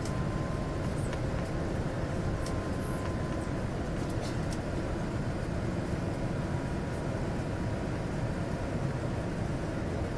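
Steady cabin noise inside a jet airliner on approach: engine and airflow noise, deep and even, with a faint steady whine above it.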